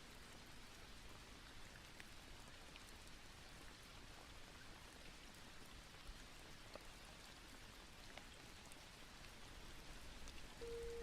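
Faint, steady rain with scattered small drop ticks.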